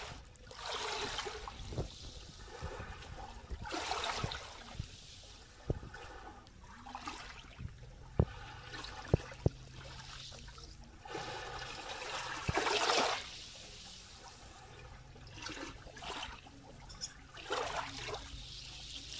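Small waves lapping into shallow water at the shoreline: a soft wash swells and ebbs every few seconds, with trickling and gurgling between. A few sharp clicks come just past the middle.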